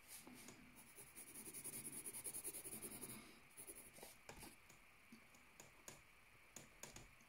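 Faint pencil shading on notebook paper: quick back-and-forth scratching strokes for about three seconds, then a few scattered light strokes.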